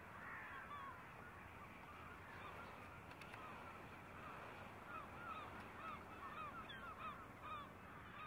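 Distant gulls calling, many short arched cries repeating over a faint hiss.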